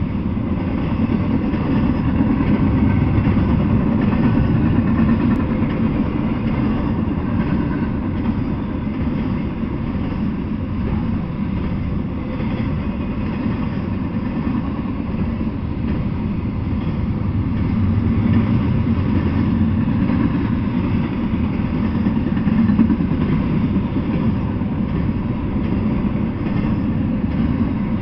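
Double-stack intermodal freight train rolling past, a steady low noise of its wheels running on the rails.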